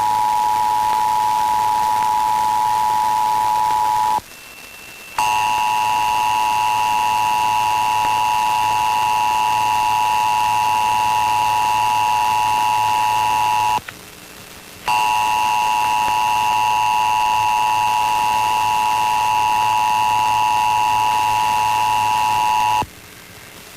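Emergency Alert System two-tone attention signal, 853 Hz and 960 Hz sounding together as one steady, loud, harsh tone. It breaks off briefly twice, about four and about fourteen seconds in, and stops shortly before the end, the cue for the spoken test message.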